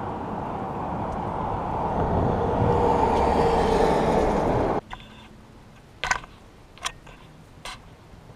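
A vehicle passing on the road bridge: a rushing rumble that grows louder over about four seconds, then cuts off abruptly. A few sharp clicks follow in the quiet.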